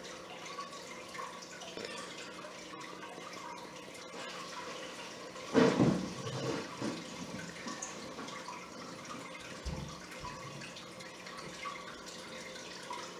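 Steady faint sound of running water with a low steady hum underneath. A short, louder noise comes about five and a half seconds in.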